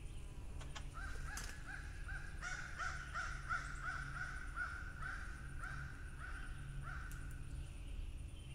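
Crows cawing off-camera: a long, fast run of caws, two to three a second, starting about a second in and stopping about a second before the end.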